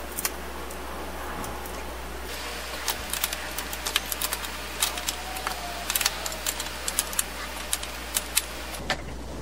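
Hand wrench turning a 2-inch hex-head screw into a wooden roof beam to fix a steel bracket, with no pilot hole drilled: a run of irregular sharp clicks, single and in small clusters, as the wrench works the screw head in stiff, hard turns.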